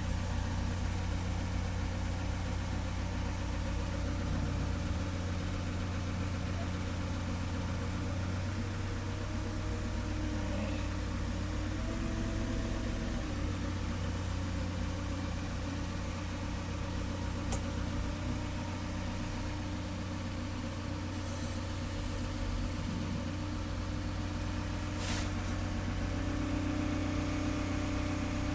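Heavy diesel engine running steadily with a low, even hum, as machinery works on lowering a concrete plant's mixer.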